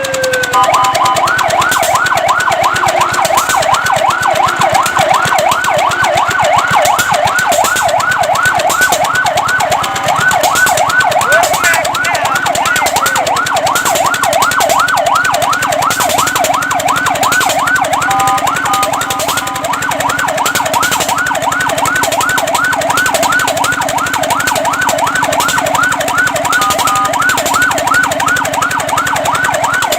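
Fire truck siren sounding loudly in a fast yelp, its pitch sweeping up and down several times a second. It is broken a few times by short steady tones.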